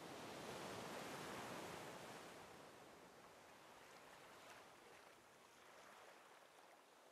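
Faint wash of small waves on a sandy beach, swelling in the first couple of seconds and then fading.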